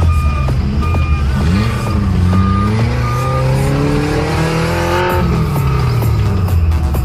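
Off-road vehicle engine running and revving up, its pitch climbing steadily for about three seconds, then dropping off about five seconds in.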